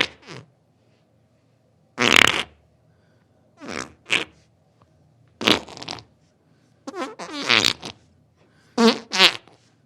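A series of about eight separate farts with short silences between them. Some are brief puffs; others are longer and buzzing, with a wavering pitch.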